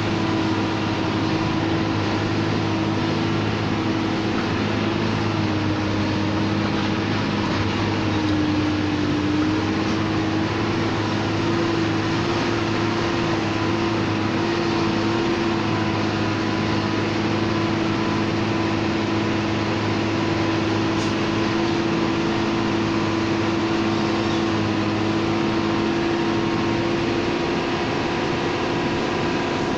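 Truck engine running steadily under way, heard from inside the cab, its pitch dipping briefly about eight seconds in and then holding steady.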